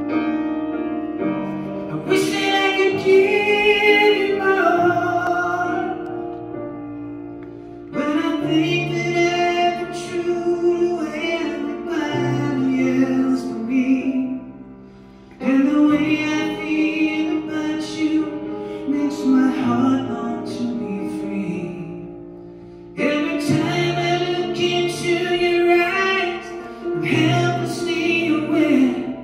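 Male singer performing live, accompanying himself on a grand piano, in long sung phrases with short pauses between.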